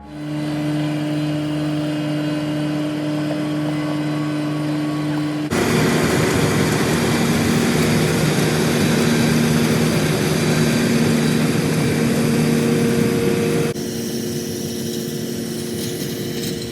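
John Deere 6620 turbo combine running steadily, its engine tone with machinery noise over it. It cuts abruptly to a louder, noisier stretch about five seconds in, then drops back down near the end.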